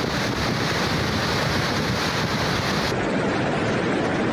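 Muddy flash-flood water rushing hard, a steady, continuous rush. About three seconds in it cuts to a different steady rushing noise.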